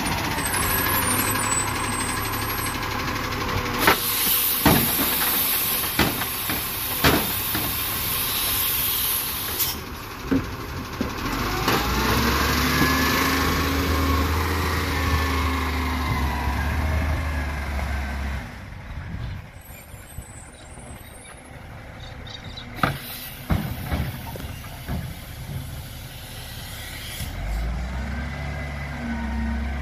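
Side-loading recycling truck running at the kerb: a long hiss of air with several clunks and knocks as the bin is worked. Then the engine rises in pitch as the truck pulls away, and it is heard again in the distance near the end.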